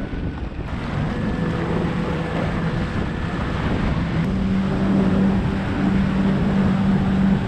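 Boat engine running steadily over a rushing noise, its hum stepping up in pitch about four seconds in as it speeds up.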